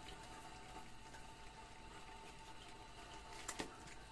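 Faint wet chewing and smacking of a litter of puppies eating rice from a tray, over a steady faint hum, with a couple of small clicks about three and a half seconds in.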